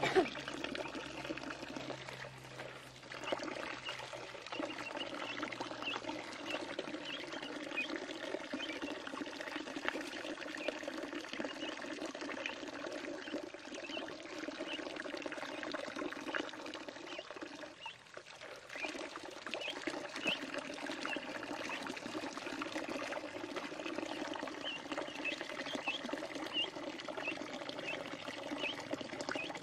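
Steady splashing and pouring of water in a shallow pool where ducks are bathing, with many short, high duckling peeps over it. The water noise dips briefly a little past halfway.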